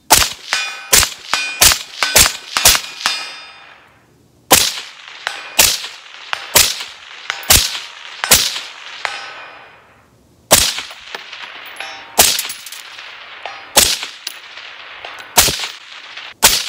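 A suppressed 5.56 AR-15 with a 10.5-inch barrel firing a string of shots, roughly one a second, about sixteen in all. Steady metallic ringing follows the reports, from bullets striking steel target plates at 200 and 300 yards.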